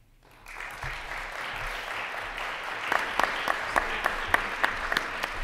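Audience applauding in a hall. It starts about half a second in and builds, and from about three seconds in a few sharp single claps stand out above the rest.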